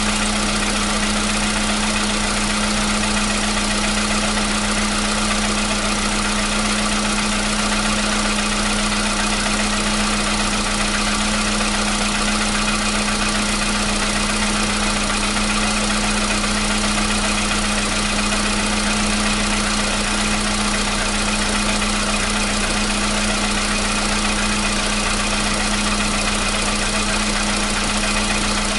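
Volkswagen Polo Sedan's 1.6-litre CFNA four-cylinder petrol engine idling steadily on a cold start, with a steady low hum. The cold-start knock it once had is absent.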